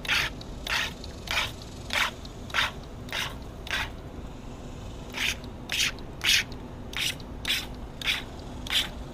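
Plastic water gun loaded with paint, fired in quick repeated trigger pulls: short noisy squirts about every half second, with a break of a second or so about four seconds in.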